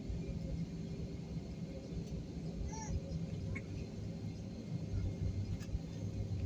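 Jet airliner cabin noise while taxiing: a steady low rumble from the engines and airframe with a faint constant hum.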